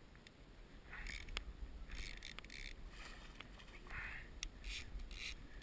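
Water splashing in several short bursts as a hooked fish thrashes at the surface beside the boat and into a landing net.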